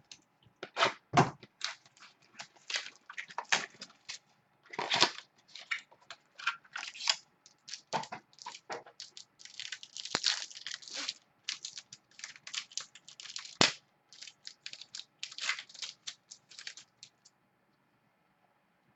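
Trading cards and their plastic packaging being handled: a busy run of crinkles, rustles and sharp clicks that stops near the end.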